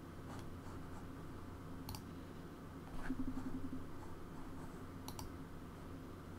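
Computer mouse clicking: a single click about two seconds in and a quick double click near the end, over a low steady hum.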